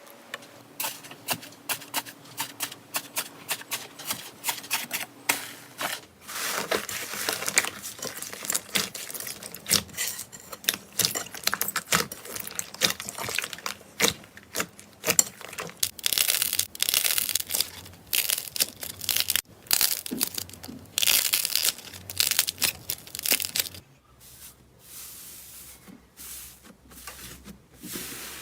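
Slime being squished, pressed and stretched by hand, making rapid sticky clicks and pops with louder crackling stretches, and sparser clicks near the end.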